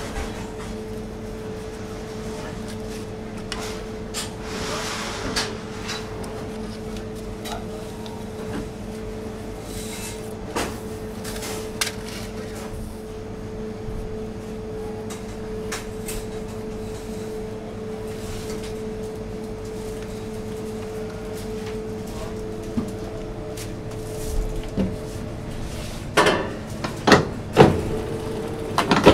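Light taps and clinks of thin aluminium tart tins and dough being handled on a granite counter, over a steady hum. Near the end, a few louder knocks.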